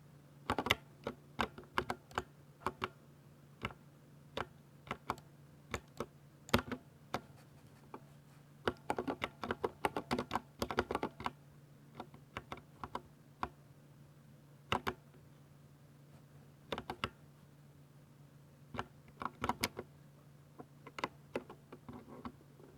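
Typing on a Ducky 60% mechanical keyboard with silver switches: irregular keystrokes, mostly single presses, with a fast flurry of typing in the middle. A faint steady hum runs underneath.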